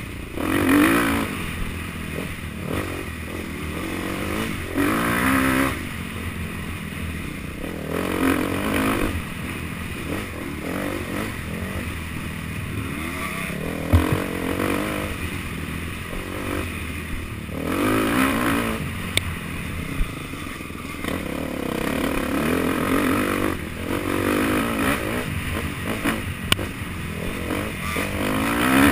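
Off-road dirt bike engine under hard riding, revving up and falling back over and over as the throttle is opened and closed, with a louder surge every few seconds. A couple of sharp knocks from the bike over rough ground.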